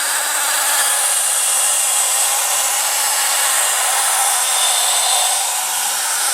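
Interactive Tracy Island toy playset playing its Thunderbird 3 launch sound effect: a loud, steady rushing noise of firing rocket engines following the countdown.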